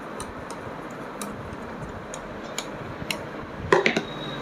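Light metallic clicks and taps from the steel needle plate and slide plate being seated and handled on an old sewing machine's bed. There is a louder clatter of metal with a brief ring near the end, over a steady background hiss.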